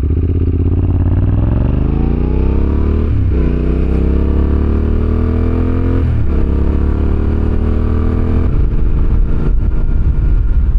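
Yamaha Ténéré 700 parallel-twin engine and exhaust accelerating through the gears: the pitch climbs, drops with an upshift about three seconds in and again about six seconds in, climbs once more, then levels off near the end.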